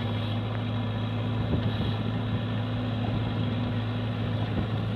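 Compact excavator's diesel engine running steadily with a constant low hum.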